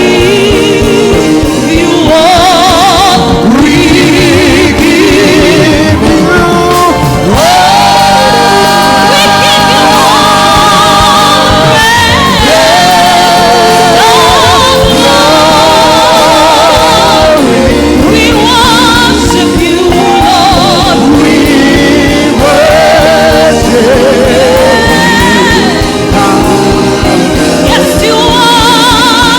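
Gospel choir singing with a loud live band, a lead voice with vibrato over a steady beat.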